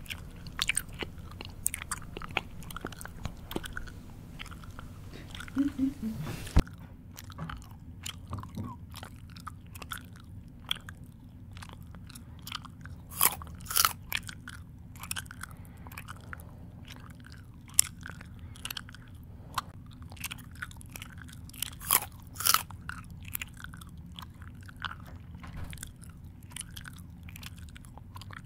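A person chewing close to the microphone, making irregular wet mouth clicks and smacks, with a few louder crunchy bites about 13 seconds in and again about 22 seconds in.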